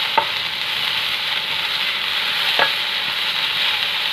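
Chicken and chopped vegetables sizzling in a hot non-stick kadhai over a high gas flame, stirred with a wooden spatula: a steady frying hiss with two short spatula scrapes.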